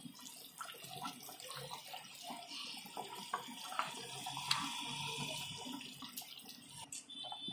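Thick tamarind-and-coconut fish curry bubbling at a rolling boil in a steel pot, a steady run of small irregular pops and gurgles.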